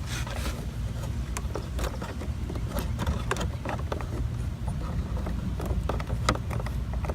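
Scattered small clicks and ticks of hands working a bulb socket back into a motorcycle's headlight housing, over a steady low rumble.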